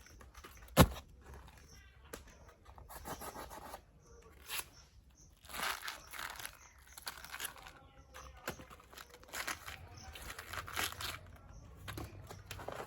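Banana flower being peeled and torn apart by hand: repeated bursts of tearing and crinkling, with one sharp snap about a second in.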